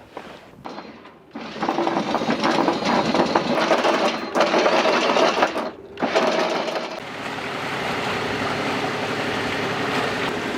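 Anchor windlass hauling in the chain: a fast mechanical rattle for about five seconds, broken by two short pauses. It gives way to the boat's engine running with a steady hum.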